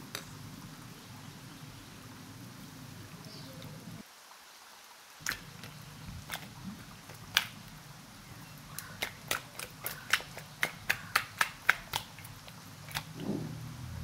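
A bowl of sauced fried chicken wings being shaken to toss them: a few single light knocks, then a quick even run of knocks, about three a second, for a few seconds.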